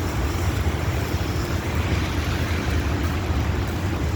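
Wind buffeting a phone's microphone: a steady low rumble with a hiss above it.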